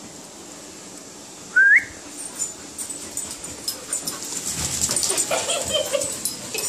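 Puppies playing on a concrete floor: a short, high, rising squeal about one and a half seconds in, then claws clicking and skittering with whines and whimpers.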